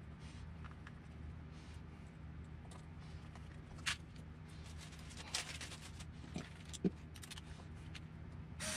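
Faint handling sounds of small hand tools: hex drivers and screws clicking and tapping as they are set down and picked up, over a low steady hum, with a short louder noise near the end.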